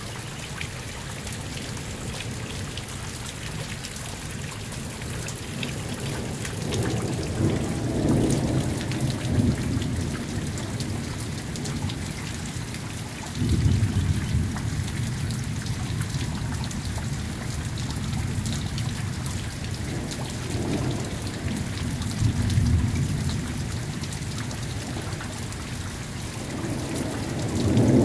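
Steady rain falling through a thunderstorm, with thunder rumbling several times. One roll starts suddenly about halfway through, and another builds near the end.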